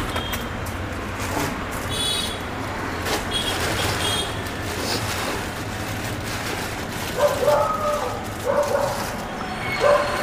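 A dog barking a few short times in the second half, over a steady hum of street traffic.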